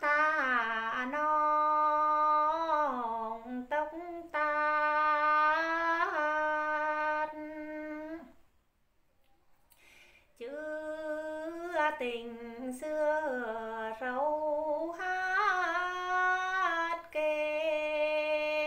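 A woman singing a Tày phong slư folk song unaccompanied, in long held notes that bend slowly in pitch. Her singing breaks off for about two seconds a little past the middle, then resumes.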